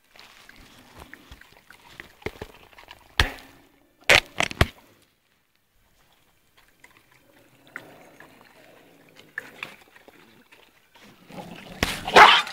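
Stray puppies feeding close to the microphone, with faint rustling and a few sharp clicks about three and four seconds in. A loud rubbing noise from the phone against cloth comes near the end.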